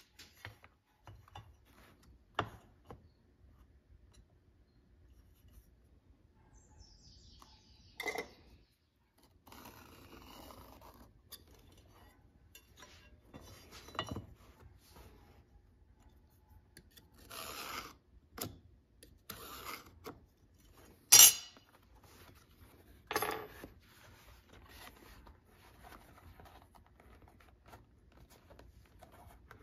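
Handling sounds on a workbench: a metal speed square and tools knock and clink against the benchtop, and leather is handled, scuffing and rubbing, in scattered short bursts. One sharp clink about two-thirds of the way through is the loudest.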